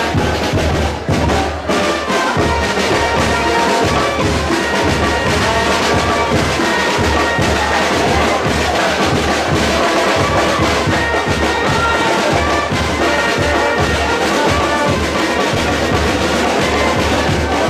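Brass band music with drums, playing steadily.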